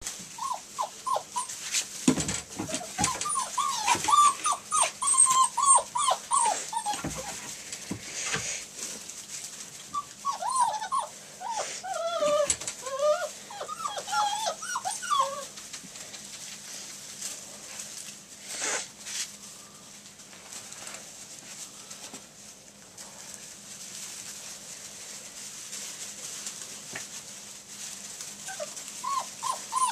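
Nearly six-week-old retriever puppies whimpering and yipping in many short, high-pitched cries, in bouts through the first half and again briefly near the end. Scattered rustles and knocks come from the pups moving in wood-shaving bedding.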